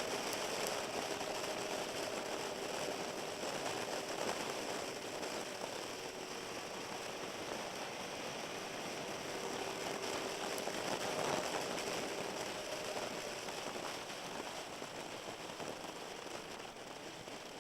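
Sport motorcycle riding on a wet road: a steady engine note under a hiss of wind and tyre spray, growing a little louder about eleven seconds in and fading toward the end.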